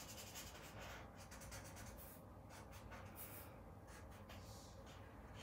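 Faint scratching of a Callart felt-tip marker coloring on paper in short, irregular strokes.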